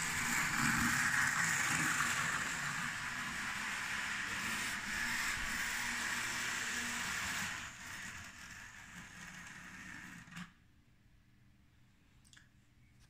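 Bachmann OO gauge James model locomotive, freshly converted to DCC, running steadily around the track under DCC control. Its sound fades as it slows and stops, between about eight and ten seconds in.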